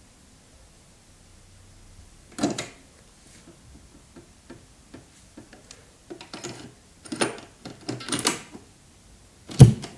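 Clicks and clunks of a Sharp GF-9494H boombox's cassette deck: a sharp click as the cassette door opens, small rattling clicks as a tape is put in and the door pushed shut, and near the end a loud mechanical clunk of the play key going down.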